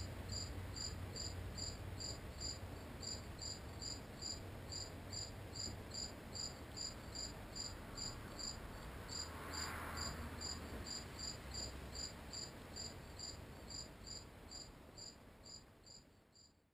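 A cricket chirping in a steady, even rhythm, roughly two and a half high-pitched chirps a second, over a low rumble. The sound fades out near the end.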